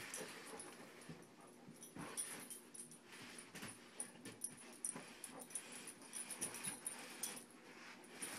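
English mastiff puppy breathing and making mouthing noises as it mounts and tugs at a plush rocking horse, with irregular soft rustles and knocks from the toy.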